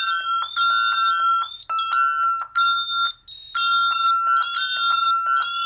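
Fire alarm sounding from a bank of Ademco keypads' built-in piezo sounders, all beeping together. It is a high steady tone cut into on-off pulses, with several slightly different pitches layered from keypads not quite in step. This is the panel's fire alarm for zone 95, the keypad fire panic.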